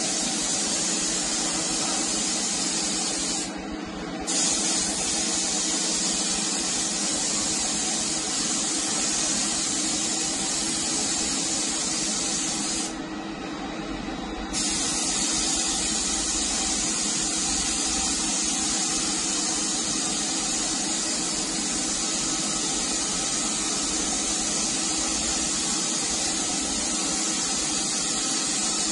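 SATAminijet 4400 B RP spray gun with a 1.2 mm nozzle, hissing steadily as it sprays a first coat of clear. The air breaks off twice when the trigger is let go: briefly about 4 s in, and for a second and a half about 13 s in.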